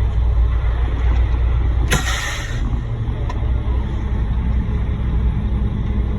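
Heavy truck's diesel engine idling with a steady low rumble, with one short, loud hiss of air about two seconds in.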